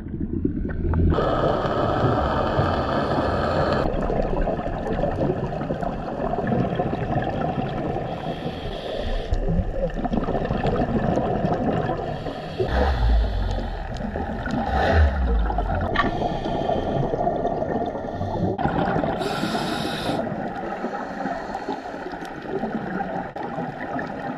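Scuba breathing heard underwater: a diver's regulator drawing breaths and releasing bursts of exhaled bubbles that come and go every few seconds, over steady underwater noise.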